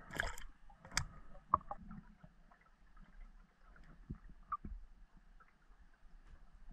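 Underwater handling noises of spearfishing gear heard through the camera housing: a few sharp knocks and clicks, the loudest near the start and about a second in, with softer ones later, over a faint steady hum.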